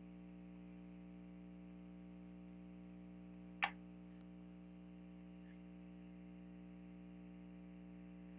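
Faint steady electrical hum, with one sharp click about three and a half seconds in.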